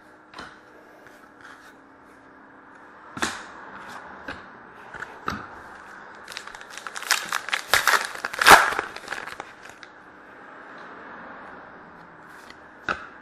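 Hockey trading cards and their packaging being handled: crinkling and tearing-like scrapes with sharp clicks, thickest in a flurry just past the middle.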